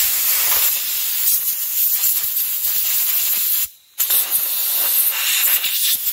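Compressed-air blow gun blasting a STIHL chainsaw guide bar clean of dirt: a loud hiss of air, broken once just before four seconds in, then a second blast that cuts off at the end.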